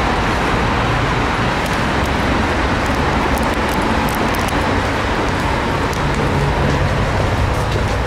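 Steady road traffic noise with a low engine hum.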